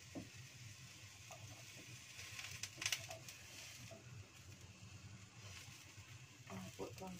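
A metal utensil scrapes and knocks against a non-stick wok as soft, pan-roasted eggplant pieces are turned over, with a sharper clatter just before the middle, over a low steady hum.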